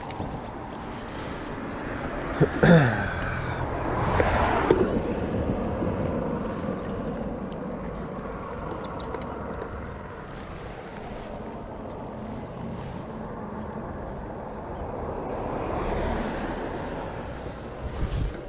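Steady rumble of wind on the microphone, with a couple of sharp handling knocks about three and four and a half seconds in, the first carrying a brief squeak falling in pitch.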